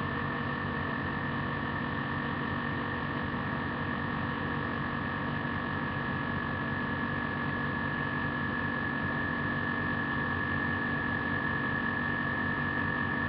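Steady electrical hum and hiss with a thin high whine, unchanging, with no distinct sound event.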